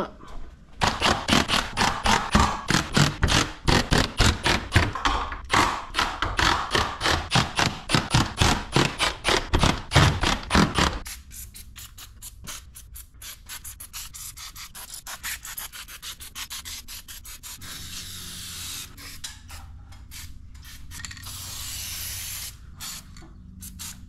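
Fast rhythmic rasping, about five strokes a second, as the garage door's hardware is tightened with a hand tool; it stops about eleven seconds in. After that, quieter short hisses of aerosol lubricant sprayed onto the door's hinges and rollers.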